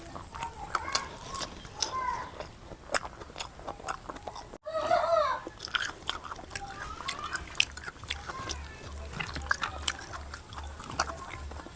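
Close-miked eating: chewing and biting food, with many wet mouth clicks and smacks and some crunching. A few short pitched calls or voice sounds come through behind the chewing, and the sound drops out for an instant a little under halfway through.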